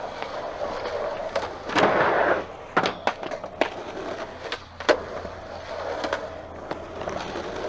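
Skateboard wheels rolling on pavement, with several sharp clacks from the board and a louder rough rush about two seconds in.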